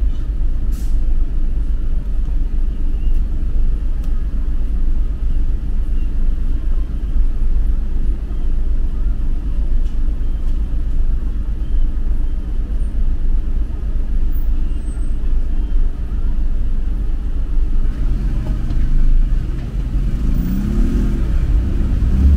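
City street traffic with a steady low rumble. Near the end an engine passes close by, its pitch rising and falling.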